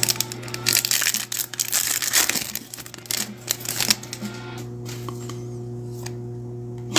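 Crinkling of a trading-card pack wrapper being handled and torn open, with dense crackling for the first four or so seconds before it dies down, over a steady low background hum.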